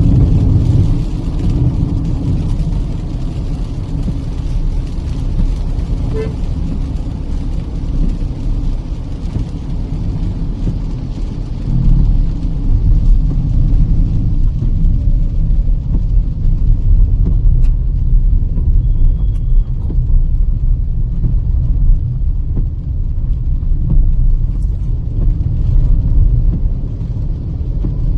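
Cabin noise of a Kia Seltos petrol car driving on a highway: a steady low rumble of engine and tyres on the road, getting louder about twelve seconds in.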